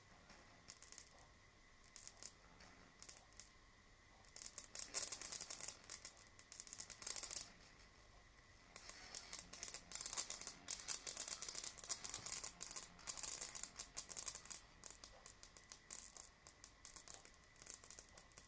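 Ion wind blower's high-voltage electrodes crackling and snapping with corona discharge and sparks as its current is modulated: the sparking that spoils it as a loudspeaker. The crackle comes in irregular bursts, heaviest in two long stretches through the middle, over a faint steady high whine.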